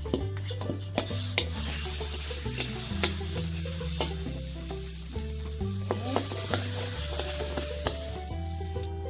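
Butter sizzling as it melts in a hot pan, with a wooden spatula scraping and tapping against the pan now and then.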